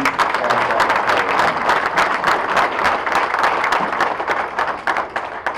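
Audience applauding, many hands clapping together in a dense, loud patter that dies away near the end.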